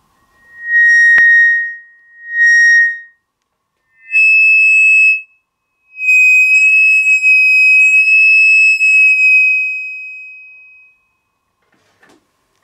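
Electric mbira's pickup feeding back through its speaker cabinet: pure, high whistling tones that swell up and die away. Two swells come on one pitch, then a higher tone sounds twice, the second time long and fading out. A sharp click comes about a second in.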